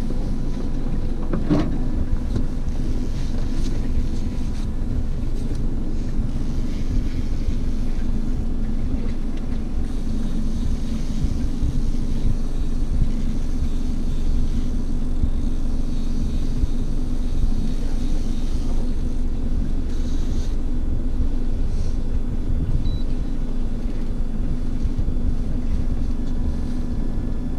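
Fishing boat's motor running steadily, a constant low hum.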